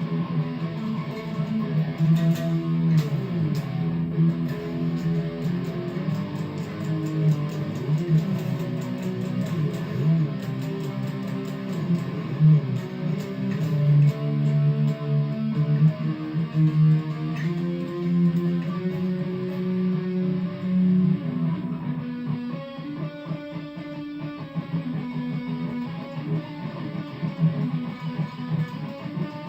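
Guitar being played, held notes and strummed chords changing throughout, with a stretch of fast repeated strumming about three-quarters of the way in.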